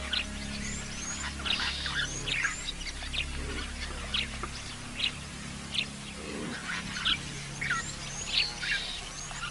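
Wild birds calling: a chorus of short chirps and rising whistled notes, several a second, over a low steady hum.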